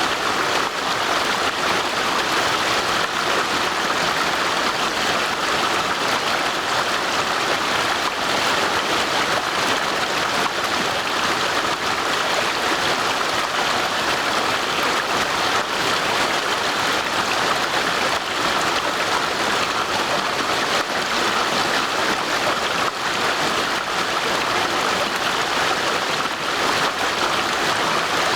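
Stream water rushing and babbling over rocks in a steady, even rush of noise.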